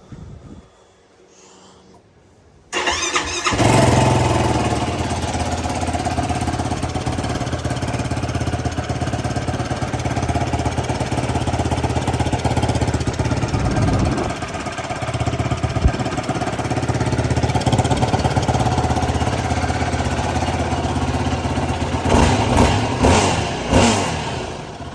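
A 2020 Yamaha YFZ450R's single-cylinder four-stroke engine on its stock exhaust, starting about three seconds in and settling to a steady idle, with a few quick throttle blips near the end.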